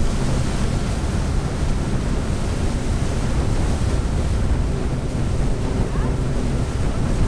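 Power catamaran running at speed: wind buffeting the microphone over rushing water from the hull and wake, a steady loud rush heaviest in the low end.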